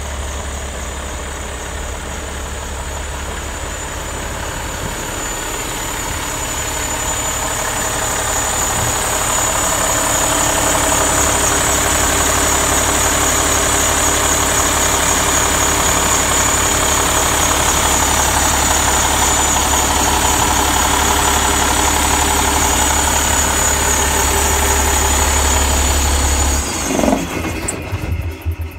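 Cummins ISX inline-six diesel engine of a Kenworth W900 tractor idling steadily, with a deep hum and a thin high whine over it. It grows louder over the first ten seconds or so as the open engine bay comes close, and cuts off suddenly near the end.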